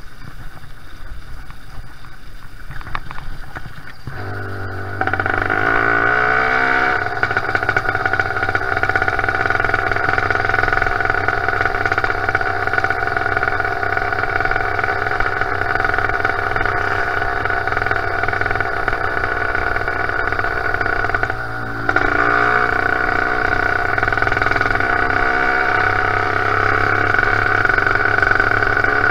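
Zeda 80 two-stroke motorized-bicycle engine with a Thunder muffler, running as the bike rides along. It is quieter for the first few seconds, then about four seconds in the throttle opens and the engine climbs in pitch to a steady, loud running note. About three-quarters of the way through it briefly drops off, then revs back up and runs steady again.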